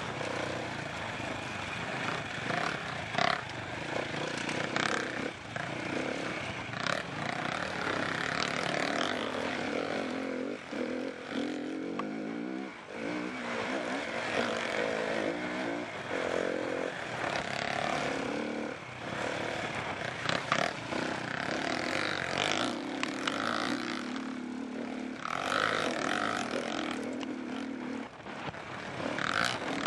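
SWM 300 enduro motorcycle's single-cylinder four-stroke engine running under changing throttle, its pitch rising and falling as it rides a rough dirt track, with frequent short knocks.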